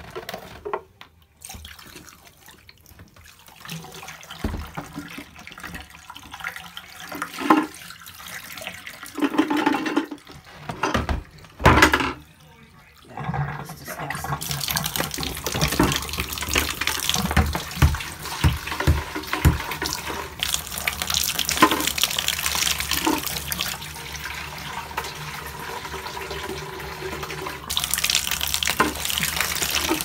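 Water running from a tap into a basin, steady from about halfway in and louder near the end, after a few knocks and bumps of plastic parts being handled.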